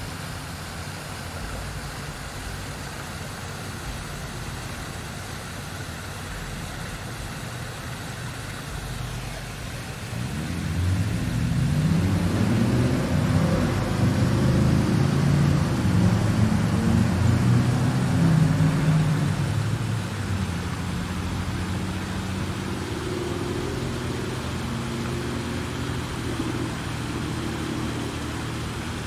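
A motor vehicle engine running over a steady low rumble. About ten seconds in it grows much louder and its pitch shifts up and down, then it eases back a little after twenty seconds and runs on steadily.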